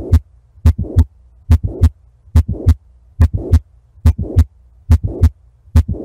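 Heart heard through a stethoscope: a steady lub-dub at about 70 beats a minute, with a murmur filling the short gap between the first and second heart sounds (a systolic murmur) that swells and fades within each beat. A faint low hum runs beneath.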